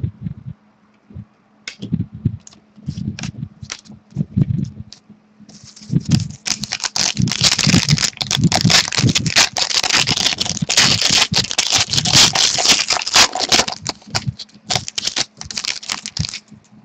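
Trading cards being handled with light clicks and thumps, then a card pack's wrapper being torn open and crinkled. The dense crackling starts about five and a half seconds in and stops just before the end.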